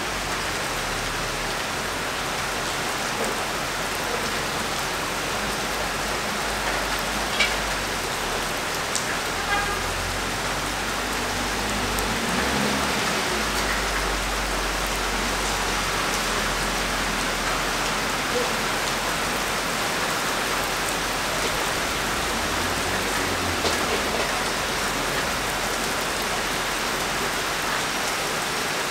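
Steady rain falling on the roofs, an even hiss with a few sharper ticks of drops here and there.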